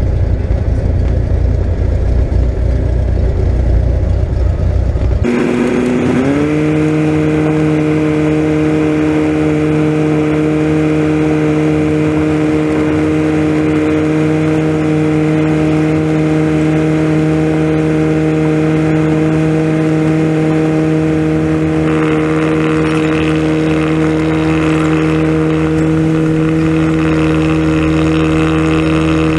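Cessna 172 piston engine and propeller running at low power while rolling out and taxiing. It is heard from inside the cockpit. A loud low rumble for the first five seconds changes abruptly into a steady engine drone that rises slightly in pitch and then holds. A higher hiss joins about three-quarters of the way through.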